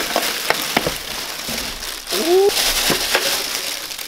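Clear plastic wrapping crinkling and rustling as a heavy heat press inside it is handled and lifted, with a few light clicks.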